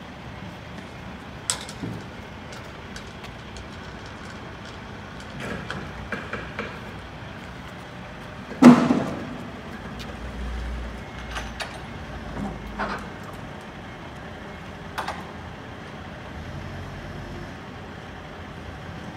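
Clanks and latch rattles from a semi trailer's rear swing doors being handled and secured, with one loud metallic bang about nine seconds in and several lighter knocks, over a steady background rumble.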